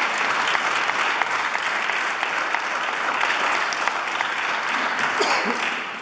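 Audience applauding, a dense, even clatter of many hands clapping that dies away near the end.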